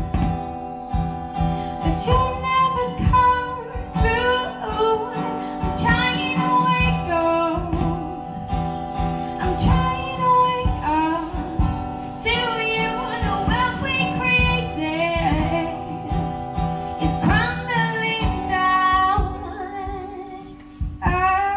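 Acoustic guitar strummed live under a woman's singing voice, a melodic line with gliding pitch over sustained chords. Near the end the music briefly drops in level before the voice comes back in.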